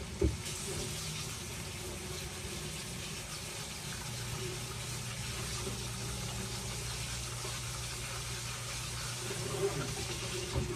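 Kitchen tap running steadily into the sink, with a low steady hum joining about four seconds in.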